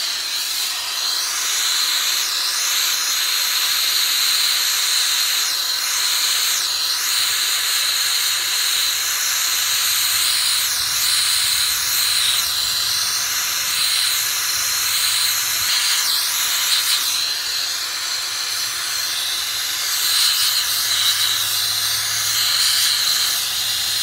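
Acetylene hand torch with a small number 2 brazing tip burning with a steady hiss as it heats the thin brass top of a radiator for soldering.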